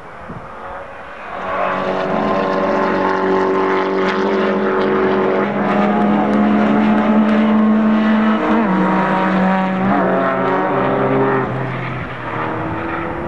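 Racing car engines at high revs, getting louder about a second in and then held fairly steady, with the pitch dropping a couple of times later on as the cars shift or lift off.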